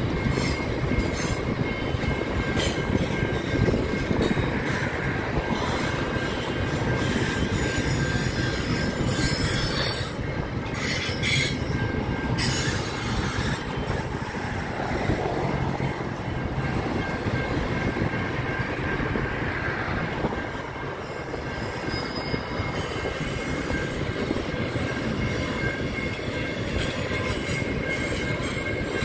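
Freight train wagons rolling past: a steady rumble of steel wheels on the rails, with a thin, steady high-pitched squeal held over it.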